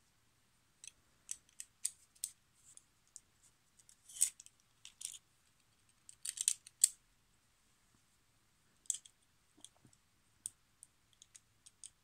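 Faint, irregular small metal clicks and light taps, a few louder ones about four seconds in and between six and seven seconds in: the stainless blade, brass screw wheel and washer of an Olfa craft knife being fitted to its black handle by hand.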